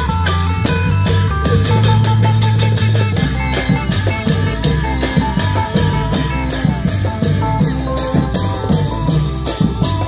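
Klong yao (Thai long drum) ensemble playing: drum strokes in a quick, even beat of about four a second over an amplified plucked-string melody and a heavy bass line.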